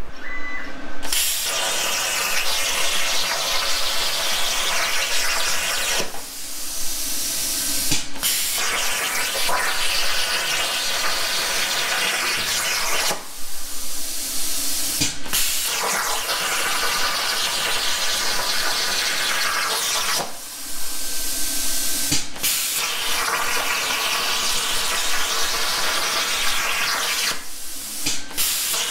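Razorweld 45-amp plasma cutter's arc cutting metal plate on a CNC table: a loud, steady hiss that starts about a second in. It stops four times for about two seconds while the torch moves to the next hole, and each pause ends with a sharp click as the arc strikes again.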